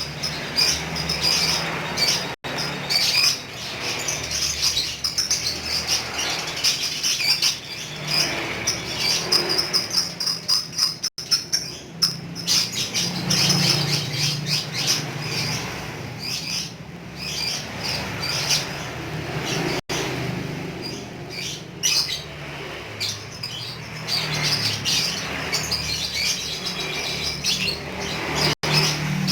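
Lovebird chattering in a long, rapid run of shrill chirps (the 'ngekek' trill), broken by a brief silent gap about every nine seconds, with a low hum underneath.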